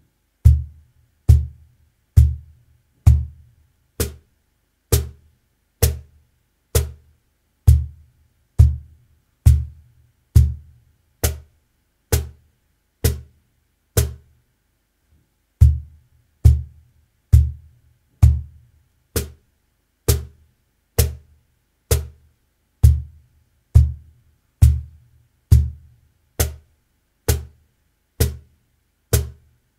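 Cruz cajon played by hand in slow, even single strokes, about one a second, in groups of four bass strokes in the centre of the front plate and four high slaps near the top edge. There is a short pause about halfway through.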